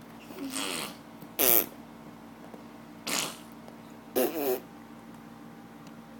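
A baby blowing raspberries: four short bursts of lip-buzzing mouth 'fart' noise over the first five seconds. The second burst is the loudest, and some bursts fall slightly in pitch.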